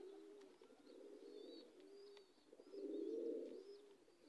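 Domestic pigeons cooing faintly in several low, wavering phrases, the loudest about three seconds in, with faint high chirps of small birds over them.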